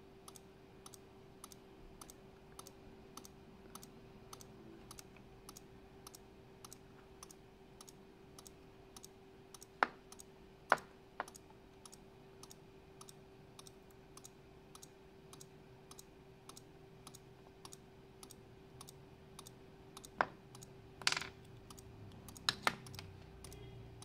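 Homemade 12 V relay flasher clicking steadily at about two clicks a second as its relay switches on and off, flashing the indicator lamp. A few louder knocks come about ten seconds in and again near the end as the wires and bulb are handled.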